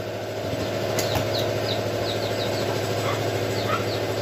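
A motor runs with a steady, even hum, while small birds give short falling chirps again and again over it. A couple of light clicks come about a second in.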